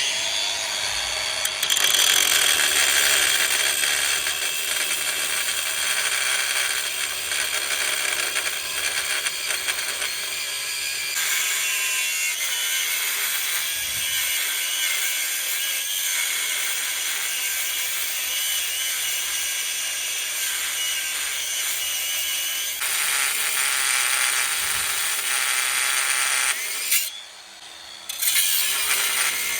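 Bauer 20V brushless cordless 4-1/2-inch angle grinder cutting into a truck's steel bumper: a steady, loud, high grinding hiss. Near the end it stops for about a second and then starts again.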